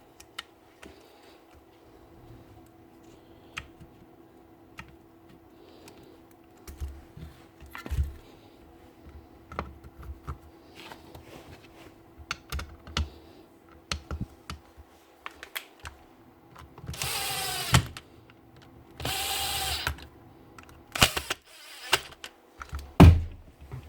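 Scattered clicks and taps of a power tool and its parts being handled, and near the end two short runs of a small electric power tool motor, each about a second long and rising in pitch as it spins up.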